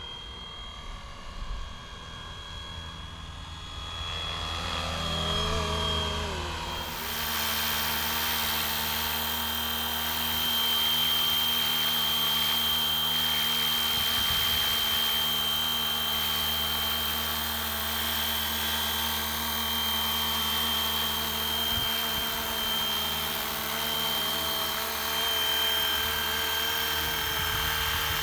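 Electric RC scale helicopter, a Fly Wing Bell UH-1 Huey, running with a steady high motor whine and rotor noise. It grows louder from about four to seven seconds in, then holds steady.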